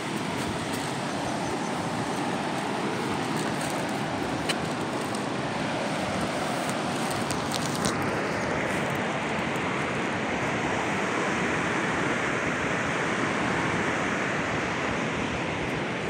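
Steady rushing of a waterfall, an even roar of falling water. The highest hiss fades about halfway through while the rush carries on.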